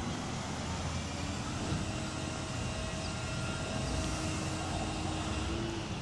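Steady distant engine drone with a faint held pitch, over a low rumble of wind on the microphone.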